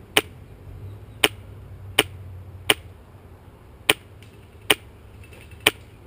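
Airsoft gun firing single shots: seven sharp cracks, roughly one a second.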